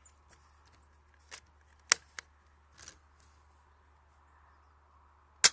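Spring-powered JG BAR-10 (VSR-10 type) airsoft sniper rifle with an Action Army piston and M150 spring: a few light clicks as the bolt is worked, then one sharp snap of the rifle firing near the end.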